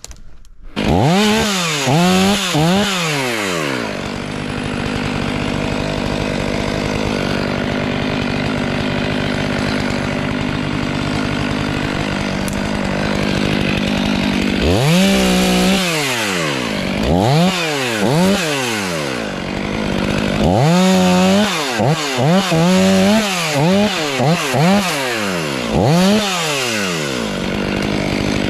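Stihl MS 500i fuel-injected two-stroke chainsaw starting up about a second in, then revved up and down in repeated quick throttle blips with steady running in between.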